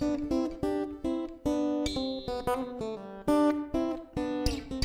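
Theme music on acoustic guitar: single notes and chords plucked in a lively rhythm, each note ringing and fading.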